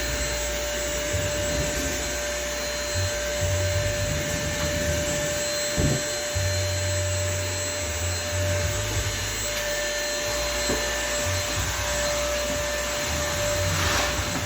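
Vacuum cleaner running steadily: a constant rush of air with a steady motor whine through it.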